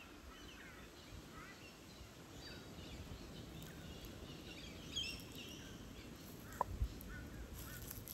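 Birds chirping and calling, in many short scattered notes over faint background noise. Two brief low thumps come near the end.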